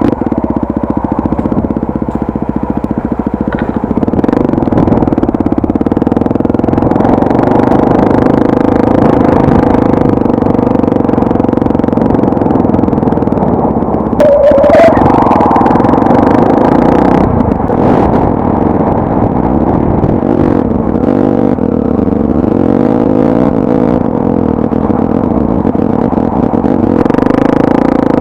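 Honda Tornado 250's single-cylinder four-stroke motorcycle engine running steadily, with a short rising note from the engine about halfway through.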